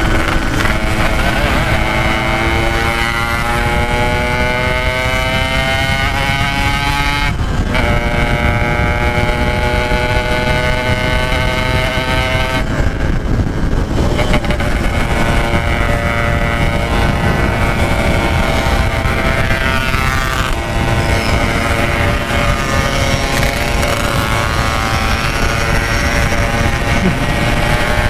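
Yamaha RX-King 135cc single-cylinder two-stroke engine pulling under load: its pitch climbs for about seven seconds, drops at a gear change and climbs again, eases off about halfway, then holds at a steady cruise.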